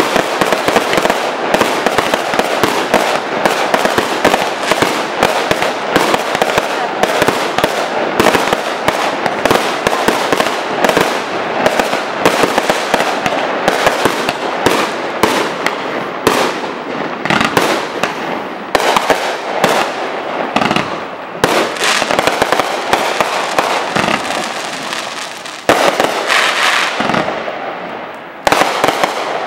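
Fireworks display: a dense, continuous barrage of aerial shell bursts and crackling. It thins out near the end, with a couple of separate loud bangs.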